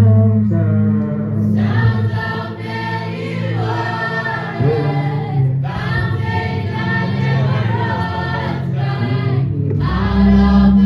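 Gospel choir singing with instrumental backing, in sung phrases of a second or more over steady low bass notes.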